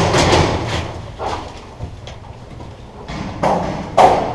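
Footsteps and gear rustling from a paintball player on the move. The noise fades about halfway through, and two sharp knocks come near the end.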